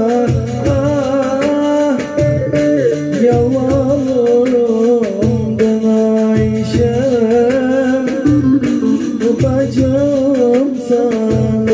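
A man singing a Turkish folk song in a wavering, ornamented voice while playing a bağlama (long-necked saz), over a steady low percussive beat.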